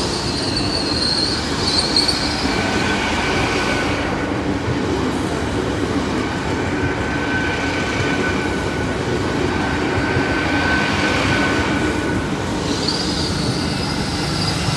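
LNER Azuma Class 800 bi-mode train rolling slowly across a level crossing: a steady rumble of wheels on rail, with high squealing tones from the wheels that come and go and change pitch.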